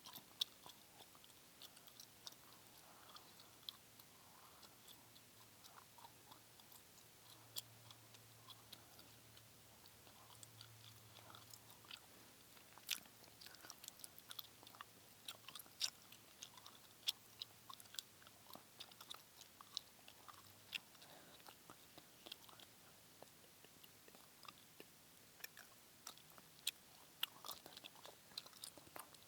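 Close-miked gum chewing and wet mouth sounds: irregular sharp clicks and smacks, coming thicker in the second half.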